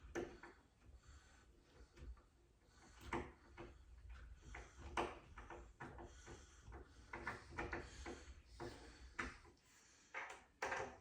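Faint, scattered clicks and light knocks of small cabinet hardware being handled: a cabinet door handle and its screws being positioned against a kitchen cabinet door.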